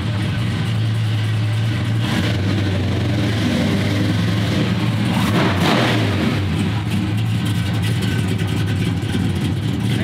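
1970 Plymouth Superbird's 440 V8 idling steadily, with a short rev of the throttle about five seconds in.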